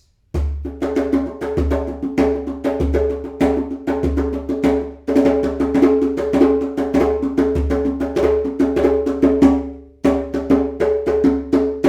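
Cow-skin djembe played by hand in a fast, busy rhythm, mixing ringing tones and slaps with deep bass strokes. The playing breaks off briefly about five and ten seconds in.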